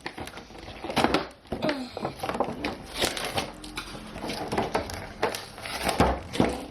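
Plastic and cardboard doll packaging crinkling and crunching, in many irregular cracks, as it is forced and torn open.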